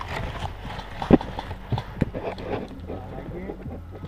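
Footsteps crunching through dry fallen leaves, uneven, with rustling of clothing and gear and a few sharper knocks, the loudest about a second in.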